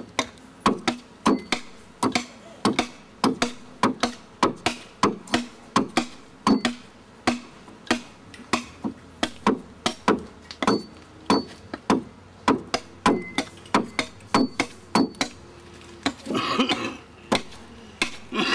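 Hand adze chopping into the wood of a dugout canoe hull being hollowed out, in steady strokes about two to three a second.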